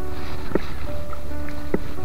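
Background music: held melodic notes with a sharp percussive hit about every second and a quarter, over a steady low hum.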